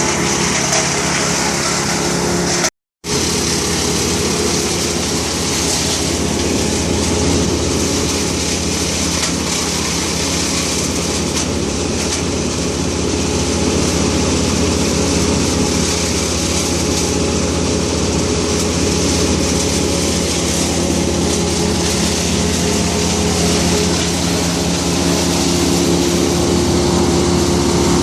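An engine running steadily at an even speed, with a haze of higher noise over it; the sound cuts out completely for a moment about three seconds in.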